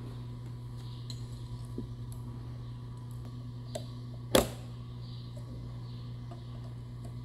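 Small metallic clicks of snap-ring pliers working the piston-pin retaining ring in a John Deere 4010 piston, with one sharp snap about four and a half seconds in, over a steady low hum.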